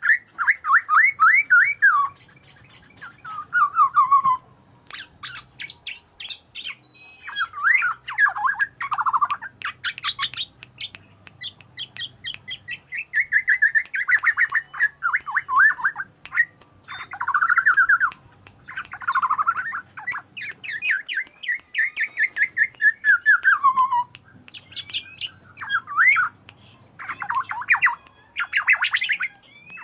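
Black-naped oriole (kepodang) singing busily: bursts of rapid, sweeping chattering notes, phrase after phrase with only short pauses between them.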